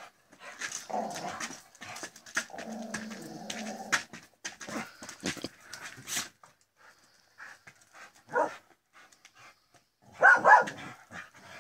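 Dogs barking in rough play during a tug game, with a sharp bark about eight seconds in and a louder cluster of barks near the end.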